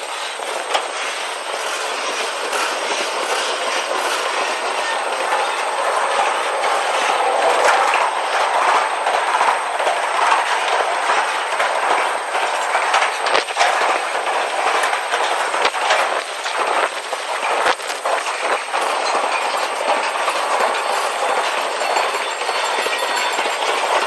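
Double-stack intermodal well cars rolling by: a steady rattling rumble of steel wheels on rail, with irregular clicks as the wheels pass over rail joints.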